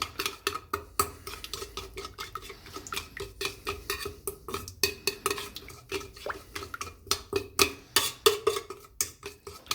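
A utensil stirring olive oil and spices in a bowl, clinking quickly and irregularly against its side, several clinks a second, with the bowl ringing faintly.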